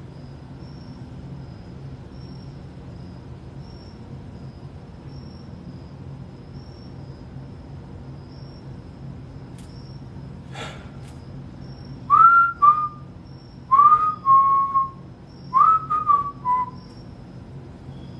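Whistling: three short two-note whistles about two seconds apart, starting about twelve seconds in, each note rising and then followed by a lower one, over a steady low hum. A single sharp click comes shortly before.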